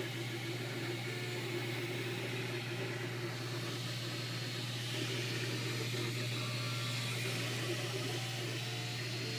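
MakerBot Replicator 2 3D printer running mid-print: a steady hum from its cooling fans, with the stepper motors sounding short tones that change pitch as the print head moves.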